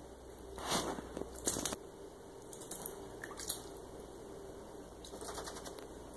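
A kitten's paws moving through shallow bathwater in a tub: a few soft, brief splashes and light taps.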